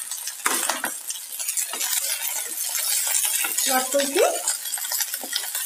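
Chopped vegetables sizzling in hot oil in a kadhai while a spatula stirs them, with a steady hiss and the small clicks and scrapes of the spatula against the pan.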